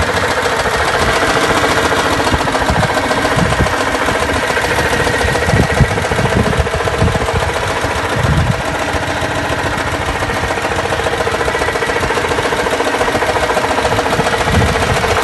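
1983 Citroën Acadiane's 602 cc air-cooled flat-twin engine running steadily.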